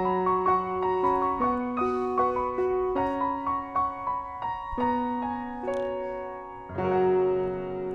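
Piano music: a melody of single notes moving in a steady pulse, ending on a louder held chord near the end.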